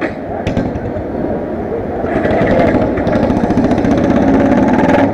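Several motorcycle engines idling and running close by, growing louder about two seconds in.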